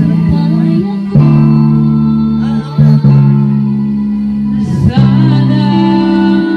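Home karaoke: a man singing into a handheld microphone, with a girl singing along, over a loud backing track of guitar and bass with long held notes.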